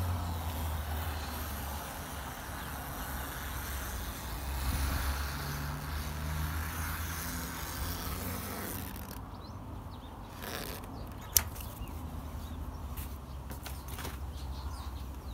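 Canvas awning fabric rustling and flapping as it is handled, over a steady low hum. The rustle thins out after about nine seconds, and a single sharp click comes about eleven seconds in, followed by a few lighter ticks.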